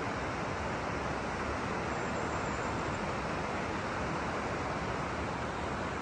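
Steady outdoor rushing noise, even and unbroken, the kind that wind and moving water make.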